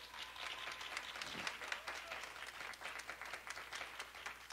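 Congregation applauding: many hands clapping in a dense, even patter.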